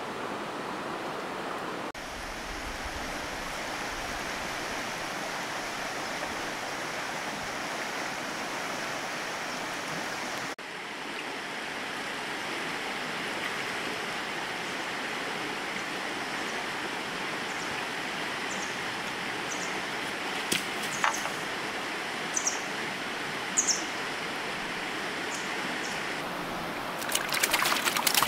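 Steady rush of running water. In the last third come a few short, sharp clicks, bunched up near the end.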